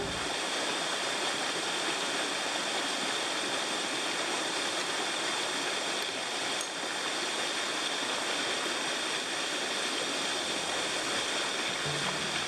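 Clear, rocky stream rushing steadily over small cascades between boulders.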